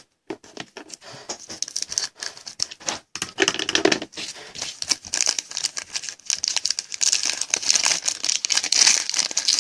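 Crinkling and tearing of a foil trading-card pack wrapper being handled and opened, a dense crackle that grows louder toward the end.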